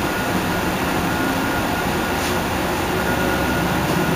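Heuliez GX 137 city bus standing and idling: a steady machine run with a low hum and a thin, constant high whine over it.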